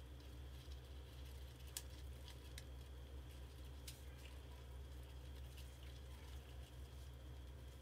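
Faint scattered clicks and scratches from a mouse caught inside a plastic water-jug trap, over a steady low hum.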